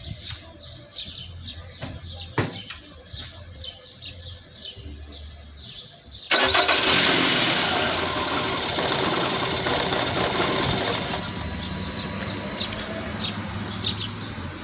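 2008 Nissan Rogue's four-cylinder engine cranked and started about six seconds in, with one cylinder's spark plug out on a test lead for a spark check; it runs loudly for a few seconds, then settles to a lower, steady run. Small clicks and handling sounds come before it.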